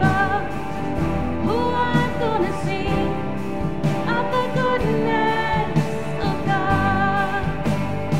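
Live worship band playing, with vocalists singing long held notes over keyboard, electric guitar and drums.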